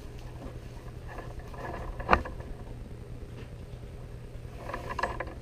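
Kangaroo leather lace strands rustling and rubbing as they are hand-plaited and pulled into place, with one sharp click about two seconds in.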